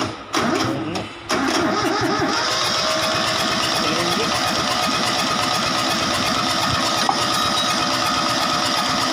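Kubota D950 three-cylinder diesel turned over by its starter motor: two short bursts, then steady, even cranking for about eight seconds without catching, the sound of an engine that is not getting fuel injected.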